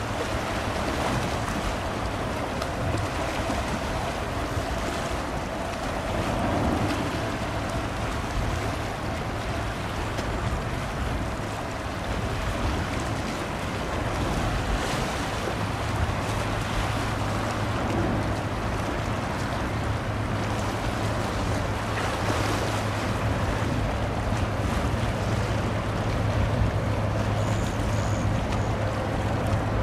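Wind and water noise with a boat's engine running steadily underneath; its low hum grows stronger about halfway through.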